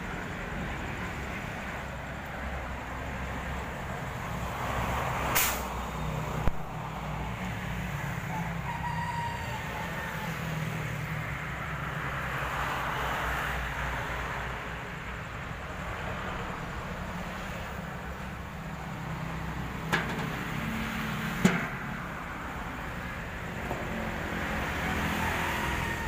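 A rooster crowing twice, over a steady low rumble, with a few sharp knocks in between.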